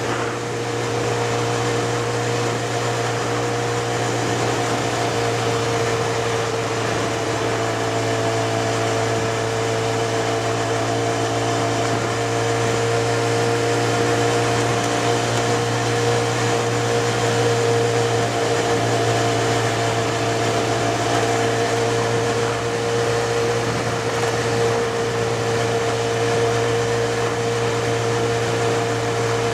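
Motorcycle engine running at steady revs while riding, a constant hum with one strong held tone, over rushing wind and road noise.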